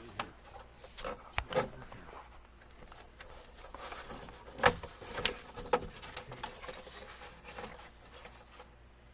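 A handful of scattered knocks and clicks at irregular intervals, the loudest a little under halfway through.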